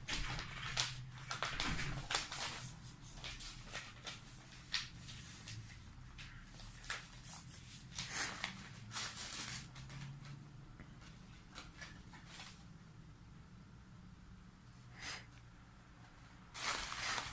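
Close handling noises: scattered taps, clicks and rustles, with a louder rustling burst near the end.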